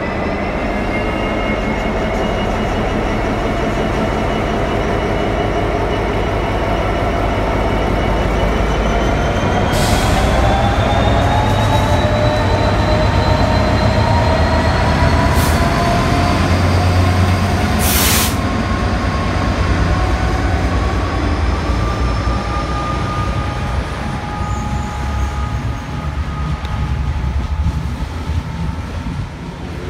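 Class 66 diesel-electric locomotive's two-stroke V12 engine pulling away with a freight train, its note rising steadily under a deep rumble. A few sharp knocks come about ten, fifteen and eighteen seconds in, and the sound eases as the wagons roll past near the end.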